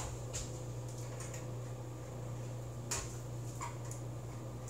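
Horizontal window blinds being closed, giving a few scattered clicks of the slats and mechanism over a steady low hum.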